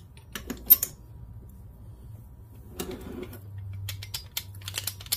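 Light metal clicks as a Briggs & Stratton 5 hp engine's connecting rod and piston are handled on the crankshaft. From about four seconds in comes a quick run of light clacks as the bushing-less rod is rocked on the crankpin: the rod bore is worn and has lots of play.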